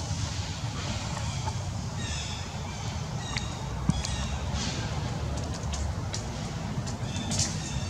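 A few faint high-pitched animal calls about two to three and a half seconds in, over a steady low outdoor rumble.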